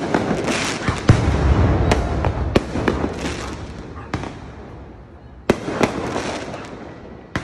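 Consumer aerial fireworks bursting overhead: a string of sharp bangs, the loudest about a second in, each followed by a spell of crackling. A fresh volley starts about five and a half seconds in.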